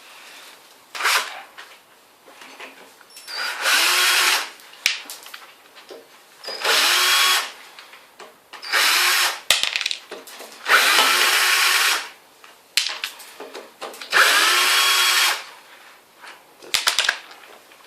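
Power drill-driver run in about six short bursts of roughly a second each, each spinning up in pitch then stopping, backing screws out of a rusted door hinge, with light handling clicks between bursts.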